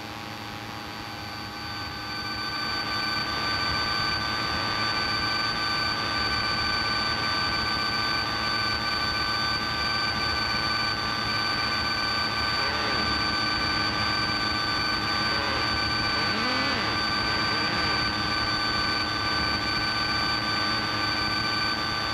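Cabin drone of a Piper Cherokee's piston engine and propeller in cruise flight: a steady hum made of several held tones. It swells over the first few seconds, then holds even.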